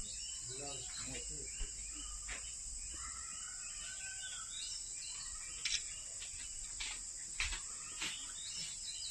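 Outdoor ambience of a steady, high-pitched insect drone with scattered bird chirps over it and a few sharp clicks in the second half.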